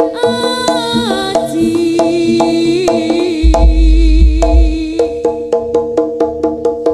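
Javanese jaranan ensemble music: fast, evenly spaced percussion strikes over sustained pitched notes, with a heavy deep boom about three and a half seconds in that lasts over a second.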